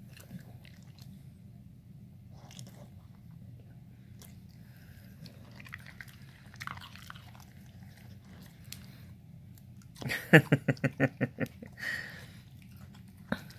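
Pit bull chewing pieces of raw cucumber: soft, sparse wet mouth clicks, then about ten seconds in a quick run of loud crunches lasting just over a second.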